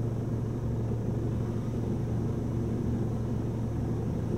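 A four-wheel-drive vehicle's engine running steadily, a constant low hum with no change in pace.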